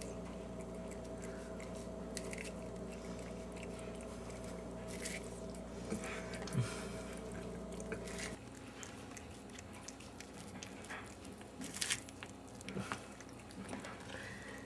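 A cat biting and chewing kernels off a corn cob, with scattered small crunches and clicks. A steady background hum runs beneath it and stops about eight seconds in.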